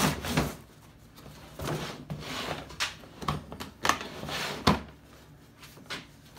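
Hard plastic tool carrying case being handled on a table: rubbing and sliding, then a string of knocks and clicks, the loudest about three-quarters through, as the case is set down, its latches are snapped open and the lid is lifted.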